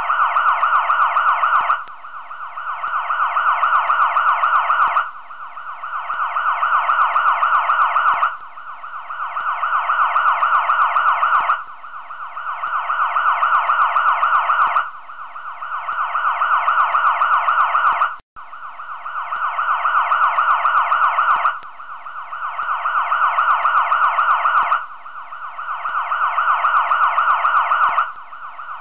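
A looped electronic siren-like warble, repeating in identical cycles about every three and a quarter seconds: each cycle swells up and then cuts off abruptly before the next begins.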